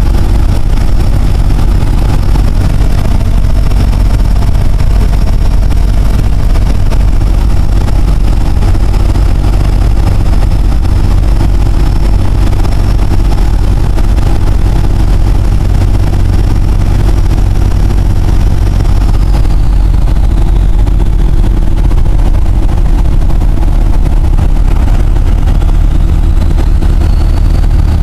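Four-cylinder 4BT Cummins turbo diesel in a 1971 Dodge pickup, heard from inside the cab while driving: a steady, loud engine drone with a high turbocharger whistle over it. The whistle falls away about two-thirds through and climbs back up near the end as the turbo spools down and up again.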